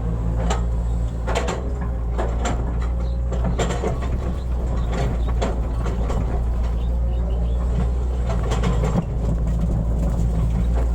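Hitachi excavator's diesel engine running steadily under load, with irregular clanks and scrapes from the bucket and linkage while digging.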